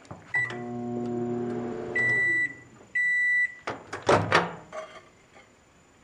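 Microwave oven started with a short keypad beep, running with a steady mains hum for about a second and a half with no arcing crackle, then two long end-of-cycle beeps, followed by clunks as the door is opened.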